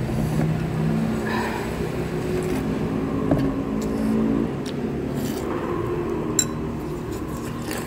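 A motor vehicle engine running, its pitch stepping up and down a few times, with two sharp clicks about three and six seconds in.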